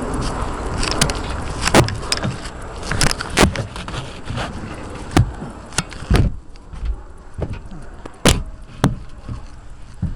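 Irregular sharp knocks and clunks over a steady rushing noise that stops about six seconds in.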